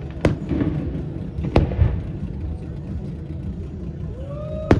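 Aerial fireworks shells bursting: three sharp bangs, one just after the start, one about a second later and one near the end, over a steady low rumble.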